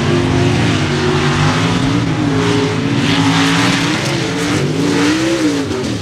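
Super street mud racing truck, a Ford pickup with a big engine, running at full throttle through the mud pit. The engine pitch rises, wavers and dips, then falls off near the end.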